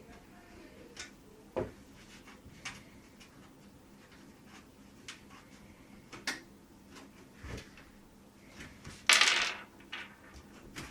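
CiT F3 micro-ATX PC case being handled and moved about, giving scattered light clicks and knocks, with a louder scrape about nine seconds in.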